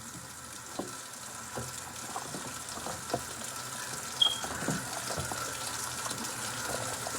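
Water running from a tap, a steady rush that slowly grows louder, with a few faint clicks.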